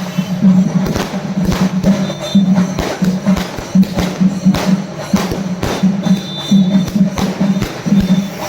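Loud music with percussion: a low tone pulsing on and off, with many sharp, irregular cracks throughout.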